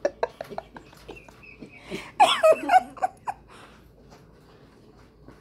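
A toddler's high-pitched squealing laugh, loud and wavering for under a second about two seconds in, after a few light knocks.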